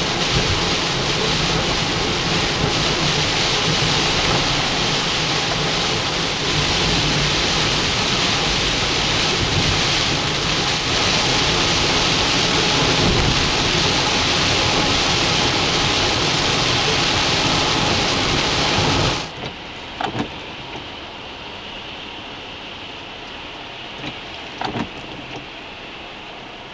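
Heavy rain pouring down in a windy storm. About two-thirds of the way through it cuts off abruptly to quieter, lighter rain with scattered drips.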